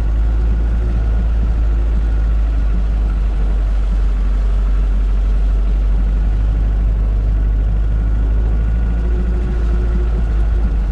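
UAZ Bukhanka van's engine running steadily with a deep, even low drone.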